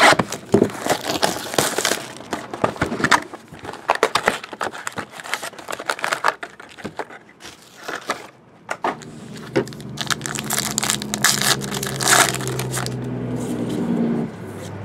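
Plastic and foil wrapping crinkling and tearing as a trading-card box and its packs are torn open by hand, in quick irregular crackles. Over the last five seconds a steady low hum joins in.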